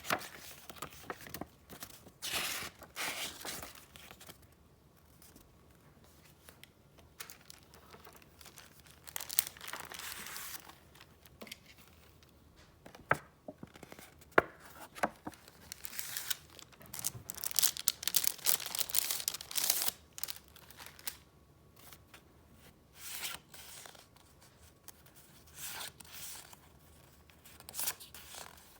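Paper and packaging being handled by hand: irregular rustling and crinkling in bursts, with a couple of sharp clicks midway.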